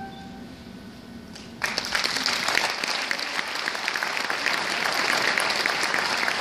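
The last held notes of a song fade away, then an audience breaks into applause about a second and a half in, with the clapping continuing steadily.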